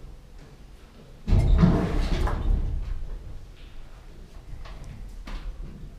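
A heavy thump about a second in, with a low rumble that dies away over a second or so, then a few faint knocks.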